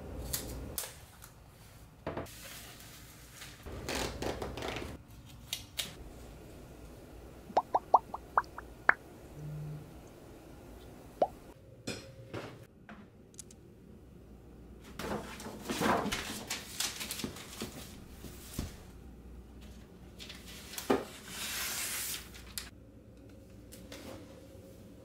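Close, quiet handling sounds of paper and packaging: scissors snipping washi tape, then paper and cardboard rustling as a paper shopping bag and a boxed laptop are handled. About eight seconds in comes a quick run of six ticks rising in pitch.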